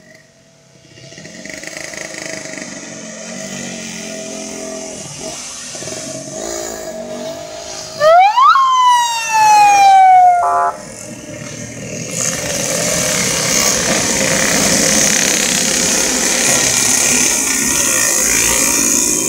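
Motorcycle engines of a group ride running and passing, building over the first few seconds. About eight seconds in, a loud siren wails, rising fast and then sliding down over about two seconds before cutting off. From about twelve seconds in, the steady engine and exhaust noise of many motorcycles riding together fills the sound.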